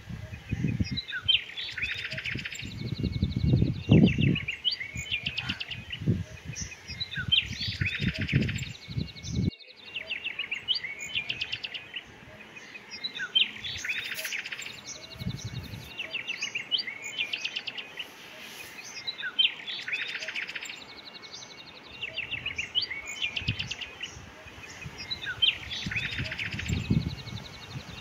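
Small birds chirping in bursts of rapid, high trills that come back about every six seconds, with irregular low rumbles in between.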